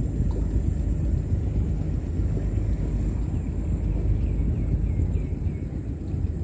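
Steady low rumbling noise with no clear pitch, and a quick run of faint, short, high downward chirps about two-thirds of the way through.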